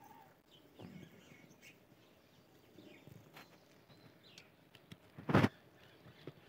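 Rabbits feeding on fresh green fodder in a wire cage: soft rustles and small clicks, with faint bird chirps. About five seconds in comes a short, loud rustling thump, the loudest sound here.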